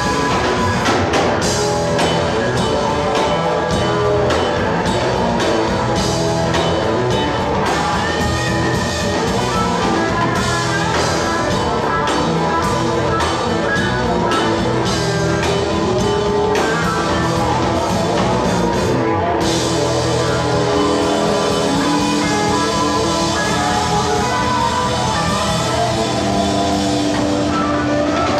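Electric blues band playing live: electric guitars over bass and drum kit, with a steady beat and gliding guitar notes.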